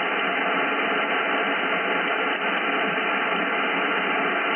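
Steady static hiss from a shortwave receiver in SSB mode on the 18 MHz amateur band, cut off sharply above and below the voice passband, with no voice signal coming through.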